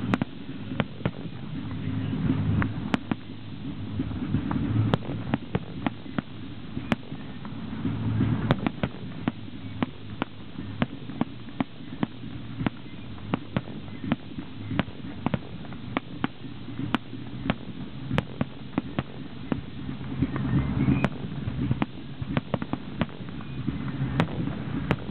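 Fireworks display: a string of sharp bangs from bursting shells, about one or two a second at irregular spacing, over a steady low rumble.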